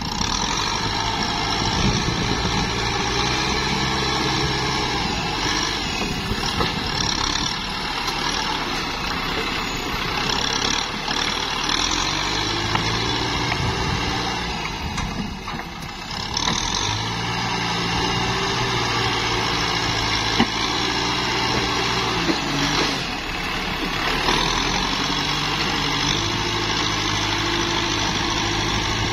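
Compact tractor's diesel engine working under load as its front dozer blade pushes wet mud. The engine note shifts up and down with the load and sags briefly about halfway through.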